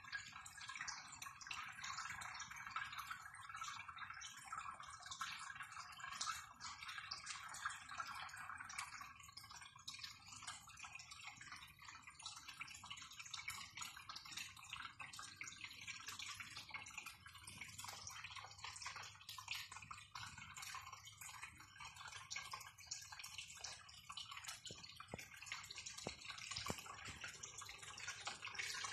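Aquarium water bubbling: a steady stream of air bubbles and moving water breaking at the tank's surface, a faint continuous fizz of many tiny drips and pops.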